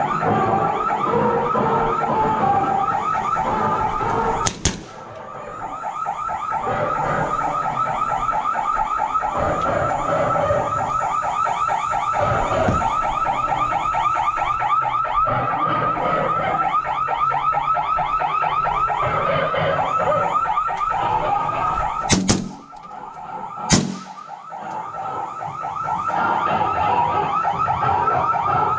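Three sharp suppressed rifle shots: one about four and a half seconds in, then two about a second and a half apart near twenty-two seconds. They sound over a continuous, fast-warbling electronic sound.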